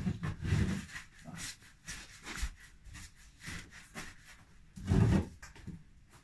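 Hands rolling and shaping bread dough on a floured wooden board: a run of short rubbing strokes, with louder bumps at the start and about five seconds in.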